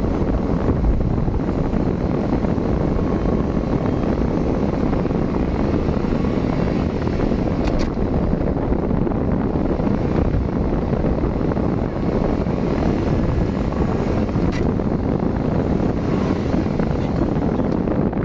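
Steady road and engine noise of a moving car, heard from inside the cabin, with two faint ticks partway through.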